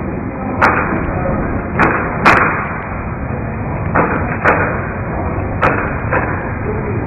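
Sharp snaps and stamps from a Xinyi quan practitioner's fast strikes and footwork, about seven in all at irregular spacing, the loudest a little over two seconds in, over a steady hiss.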